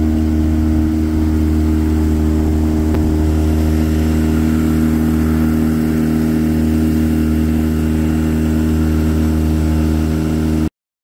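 Honda four-stroke outboard motor running at a steady speed, pushing the boat along. Its note holds one even pitch, then stops abruptly near the end.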